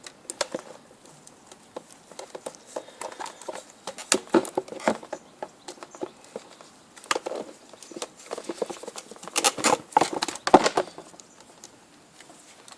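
Irregular clicks, knocks and rattles of the plastic motor housing and parts of a Numatic vacuum cleaner being handled and turned over, with busier clusters in the middle and near the end.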